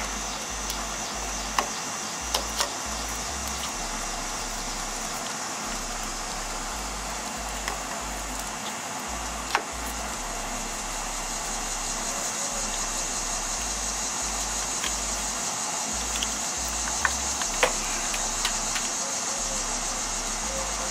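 Electrical tape being pulled off the roll and wrapped around spliced wires: a steady hiss with scattered sharp little clicks.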